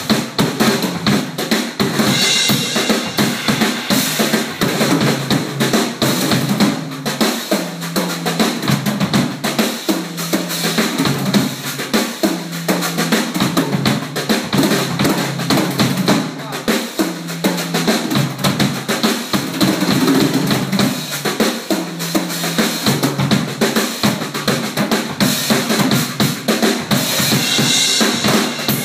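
Acoustic drum kit played continuously and hard: kick drum, snare, toms and cymbals in a busy groove.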